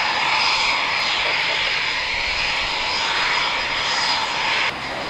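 Eurofighter Typhoon's twin EJ200 turbofans running at taxi power: a steady rushing jet noise with a high, unchanging whine on top. The sound drops abruptly to a lower level near the end.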